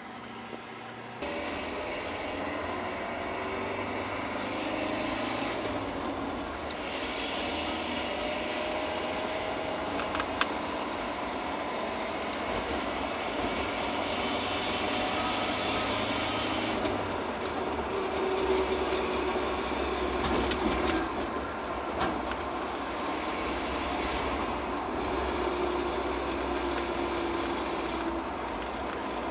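1997 Ford Ranger driving, heard from inside the cab with the rear window open: steady road noise and engine rumble, with a whirring whine from the freshly rebuilt rear end that slowly slides and holds in pitch. The owner says the whine can be caused by the ring and pinion gears not meshing perfectly.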